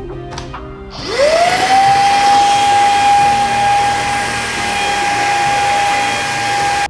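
Greenote GSC50 cordless handheld vacuum switched on about a second in: its motor spins up with a quickly rising whine, then runs steadily at one high pitch over the rush of air.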